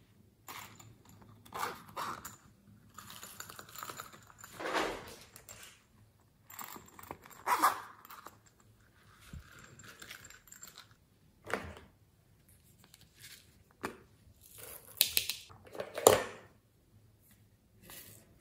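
Plastic novelty containers being picked up and set down on a table one after another: irregular clacks and rattles with a few short scrapes, the two loudest knocks about halfway through and near the end.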